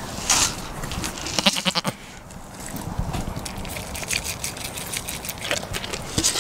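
A goat gives one short, wavering bleat about a second and a half in. Brief rustling and scuffing noises come and go around it.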